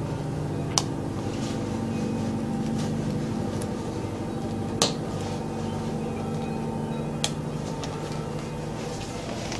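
Steady low drone made of several held low tones, an unexplained continuous noise that sounds like a distant airplane but does not pass. Three sharp clicks sound over it, about one, five and seven seconds in.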